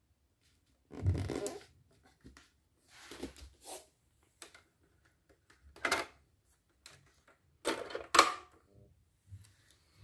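Handling noises: a few separate short clatters and rustles a couple of seconds apart, the loudest a little over two thirds of the way in.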